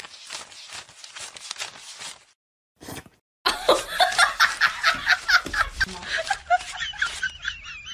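A stack of paper banknotes being riffled and counted by hand: a fast run of papery flicks. After a short pause, a person laughs in a quick ha-ha rhythm over more flicking, and a thin wavering whine comes in near the end.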